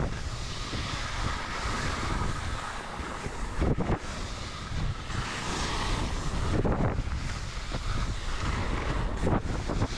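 Wind buffeting the microphone of a skier moving down an open snow slope, a steady rushing noise with heavy low rumble, mixed with the hiss of skis sliding over snow. There are a few louder surges, near the middle and again towards the end.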